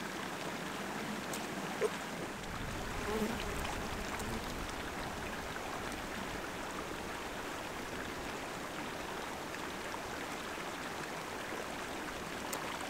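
Steady water noise at the rocky edge of a lake, with a faint knock about two seconds in.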